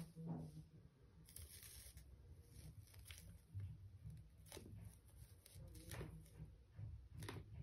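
Faint handling noises: metal tweezers scraping and tapping inside a web-lined plastic cup, with a handful of light clicks and a brief tearing hiss about a second in.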